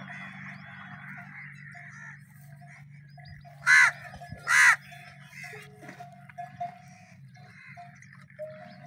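A crow cawing twice, two harsh calls a little under a second apart, over a steady low hum. Faint short whistling calls follow in the second half.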